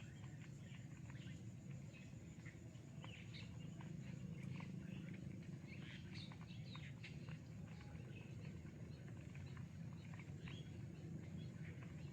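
Small birds chirping in a chorus of many short, high chirps overlapping throughout, over a faint steady low rumble.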